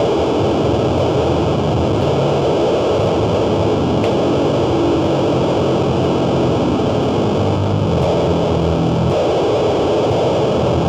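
Live noise music: a loud, steady wall of distorted, effects-processed sound, with low droning tones underneath that shift in pitch every few seconds.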